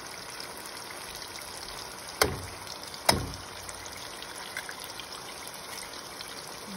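Steady sizzle of eggs frying in a tomato and onion mixture in a non-stick pan. Two sharp knocks against the pan, about a second apart and a little over two seconds in, ring briefly and are the loudest sounds.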